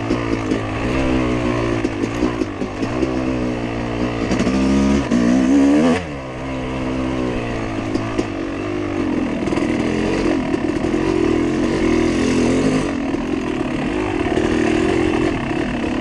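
Dirt bike engine revving up and down under load as it is ridden along a rough trail. The pitch climbs to a peak about six seconds in, drops sharply as the throttle is shut, then holds at steadier revs.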